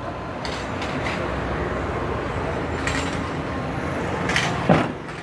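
Steady background noise of a busy outdoor car lot, with a few short clicks. Near the end there is a brief louder sound that falls in pitch.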